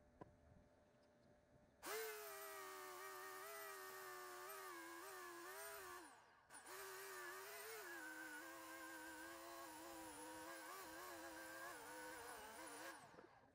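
Electric chainsaw cutting through a log. It starts about two seconds in, stops briefly around six seconds, then runs again until near the end, its whine wavering in pitch as it cuts under load.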